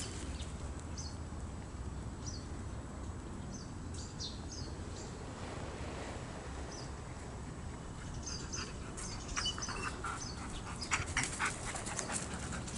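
White Swiss shepherd dog whimpering in short, high squeaks over a low steady rumble. From about nine seconds in come sharp crackles, like dry leaves crunching.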